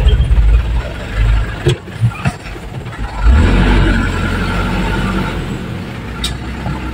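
Vehicle engine running, heard from inside the cab while driving over a rough dirt road, with a few knocks and rattles about two seconds in. About three seconds in the engine gets louder, then slowly eases off.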